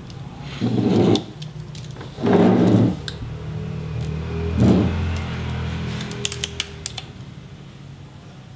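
Handling of a Samsung SF350 monitor being tilted on its plastic-wrapped stand: three rustling, knocking bursts, then a quick run of small clicks near the end of the movement. Music with steady low notes plays underneath.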